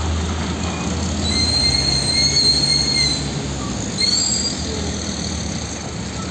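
Heavy diesel fuel tanker trucks moving at low speed: a steady low engine rumble, with a high-pitched brake squeal lasting about two seconds and a second, shorter squeal about four seconds in.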